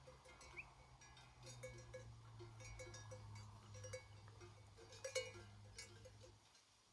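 Bells worn by grazing sheep clinking faintly and irregularly, with a louder jangle about five seconds in.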